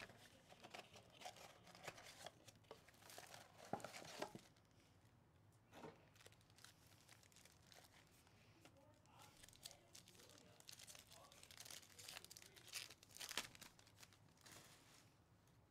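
Faint crinkling and tearing of plastic wrapping as a Topps Chrome Baseball blaster box and its card packs are ripped open, in bursts over the first four seconds and again near the end.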